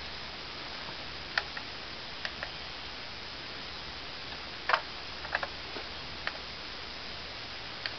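Scattered small clicks and taps of a 1/18 diecast model police car being picked up and turned in the hand, about eight in all at irregular spacing, the sharpest a little past halfway. A steady hiss runs underneath.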